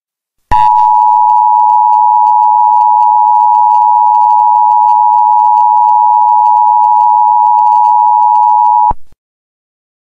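Emergency Alert System two-tone attention signal, 853 Hz and 960 Hz sounding together as one loud, steady, harsh tone. It starts about half a second in and cuts off abruptly after about eight seconds, announcing that an emergency alert message follows.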